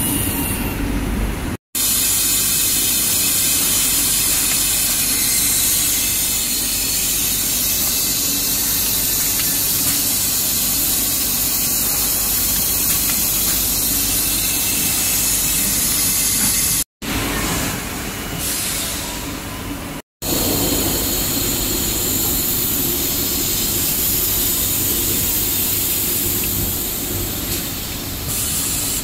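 Steady machinery noise of an insulating glass production line, with a strong hiss of air over the top. It drops out for an instant three times, about two seconds in, about seventeen seconds in and about twenty seconds in.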